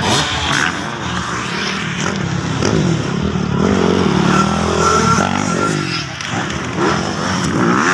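Motocross dirt bike engines revving as riders take the track's jumps, the pitch climbing and dropping repeatedly with the throttle.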